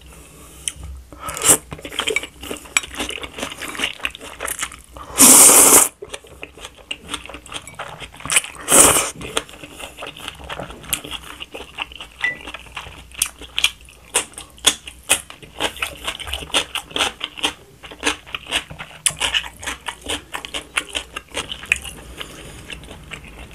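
A person eating jajangmyeon noodles: chewing and sharp clicks of wooden chopsticks against the plate, with noodles slurped loudly in two bursts, about five and nine seconds in.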